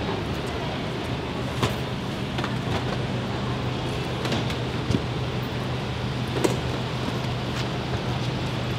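Motor vehicle driving, with a steady engine hum and road noise, and a few short sharp knocks.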